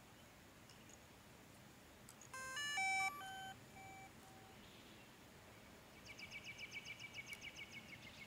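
DJI Mavic Pro drone playing its electronic power-up tune as it boots. It is a quick run of stepped beeps, followed by three short lower beeps. Near the end comes a faint, rapid run of high chirps, about eight a second.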